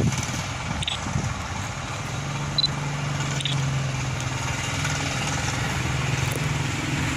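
A motor engine running steadily at a low, even pitch, with a few short high chirps over it.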